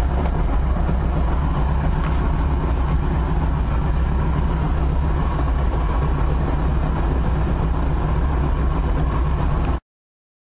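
T-6 Texan's Pratt & Whitney R-1340 nine-cylinder radial engine and propeller running steadily in flight, heard from inside the cockpit. It cuts off suddenly near the end.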